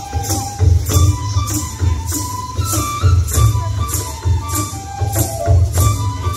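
Traditional Bodo folk dance music: a steady low drum beat with bright, sharp percussion strokes about twice a second, under a melody of held notes.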